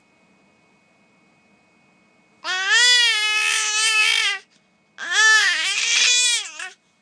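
A pet animal calling out twice, two long wavering cries of about two seconds each with a short pause between them.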